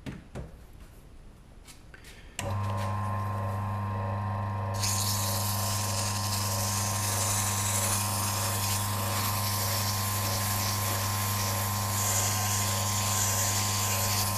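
A few light clicks, then an Adendorff wood lathe switches on about two seconds in and runs with a steady motor hum at a lowered speed set for sanding. A couple of seconds later, 150-grit sandpaper pressed against the spinning zebrano pen blank adds a steady hiss.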